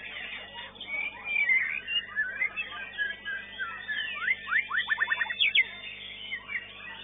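White-rumped shama (murai batu) singing: varied loud whistled phrases, with a quick run of sharp downward-sweeping notes just past halfway through.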